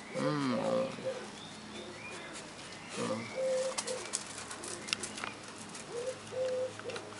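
A pigeon cooing: three phrases of low hooting notes, about three seconds apart.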